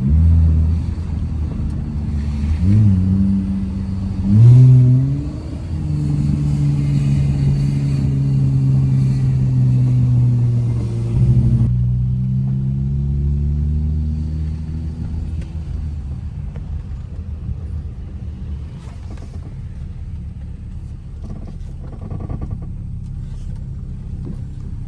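Chrysler 300's engine pulling under throttle while driving. The revs climb over the first few seconds and hold steady, then the throttle eases off about halfway and the engine note falls away as the car coasts.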